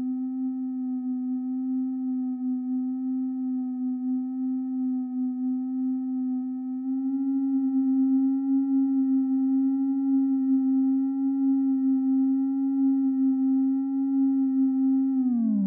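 A slowed-down iMovie sound effect: one steady low tone with fainter overtones above it. It gets a little louder about seven seconds in and slides down in pitch near the end.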